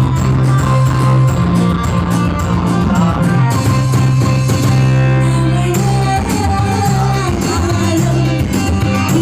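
Amplified orkes tunggal (one-keyboard band) music with a strong bass line and a singing voice over it.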